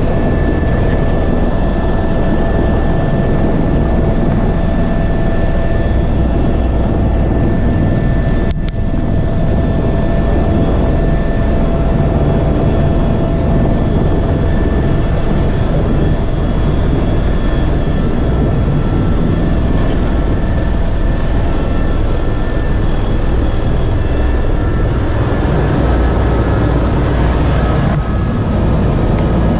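Tour helicopter in flight, heard from inside the cabin: a loud, steady rumble and rush of rotor and engine noise with constant high whining tones. It breaks off for an instant about nine seconds in.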